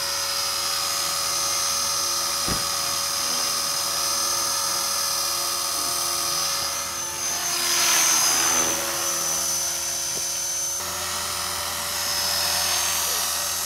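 Electric RC helicopter (HK450, a T-REX 450 clone, with a Turnigy 2836-3700 brushless motor) hovering: a steady high-pitched whine from the motor and drivetrain over the rotor's whirr, growing louder for a moment about eight seconds in.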